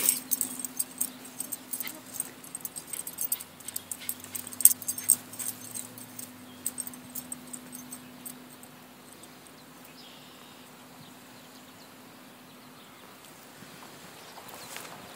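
A dog running through long grass close by, with quick, irregular, high-pitched clicks and jingles that die away about halfway through. A steady low hum runs underneath until then.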